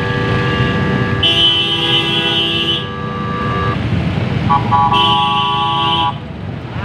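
Vehicle horns honking in street traffic: long, steady blasts that overlap through the first half, then another about two-thirds of the way through. Underneath is a constant rumble of road and engine noise from riding on a motorcycle.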